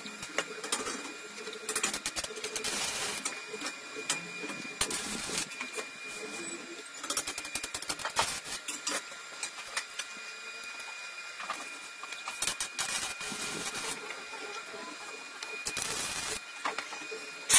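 Electric arc welding on steel scrollwork and frame: the arc crackles and sizzles in several short runs of a second or two, with pauses between them. A faint steady high tone runs underneath.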